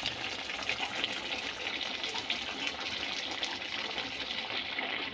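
Chicken and potato curry bubbling and sizzling in a pot as it fries in the water released by the chicken, a steady crackling hiss.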